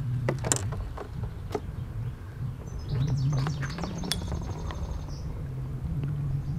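A small bird singing, with chirps and a rapid high trill about four seconds in, over a steady low hum, with a couple of sharp knocks in the first two seconds.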